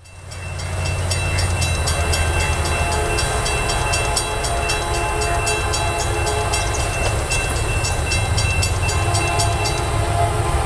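Grade-crossing warning bell ringing at about three strikes a second over a steady low rumble, the bell stopping near the end. A distant locomotive horn chord begins to sound as the train approaches.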